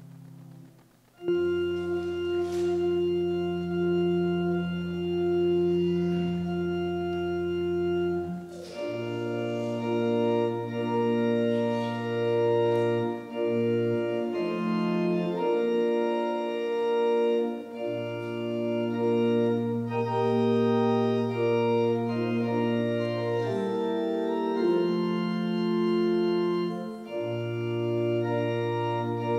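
Organ playing a slow wedding processional in sustained full chords over a deep bass line. It swells in loudly about a second in after a softer held chord, and the chords change every few seconds.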